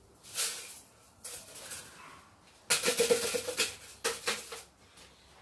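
Dry play sand being scooped and poured, a hissing rustle in several short bursts, loudest about three seconds in.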